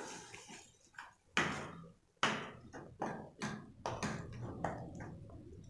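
Spatula scraping and knocking against a stainless steel kadai while thick coconut-cashew paste is stirred into chana masala gravy: about ten short strokes, two to three a second, starting about a second in.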